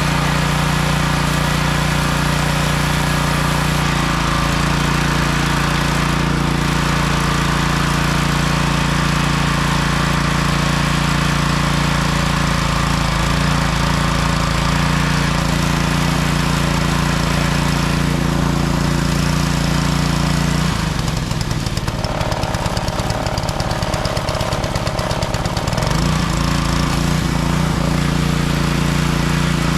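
Small gasoline engine of a pressure washer running steadily after its carburettor has been cleaned. About two-thirds of the way through, its even note turns ragged for around five seconds, then settles back to steady running.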